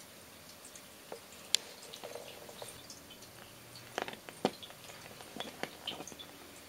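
A kitten biting and mouthing a zabuton floor cushion: scattered small clicks and soft fabric sounds, coming in clusters from about four seconds in. A single sharp click about a second and a half in is the loudest sound.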